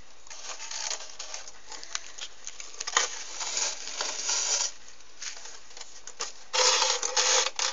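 Plastic bottle being handled while string is pulled through holes in it: irregular rustling and small clicks, with a louder rustle near the end.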